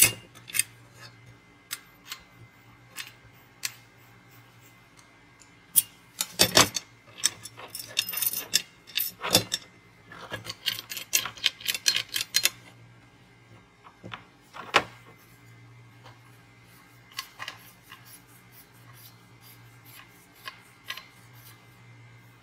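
Metal clicks and clinks of a portable folding shovel being assembled: knurled metal handle sections and the steel shovel head knocked and fitted together, in irregular bursts of small knocks that are densest a few seconds in and thin out later. A steady low hum runs underneath.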